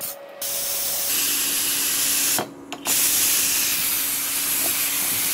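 Stovetop pressure cooker venting steam from under its weight valve: a loud, steady hiss that starts about half a second in and breaks off briefly around two and a half seconds in before carrying on.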